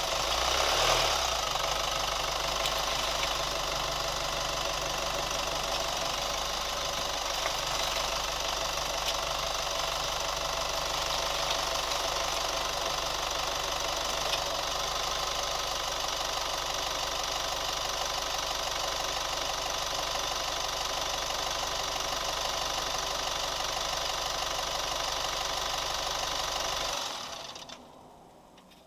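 New Chevy Colorado's engine running steadily with a ticking noise, then switched off near the end, when the sound drops away suddenly.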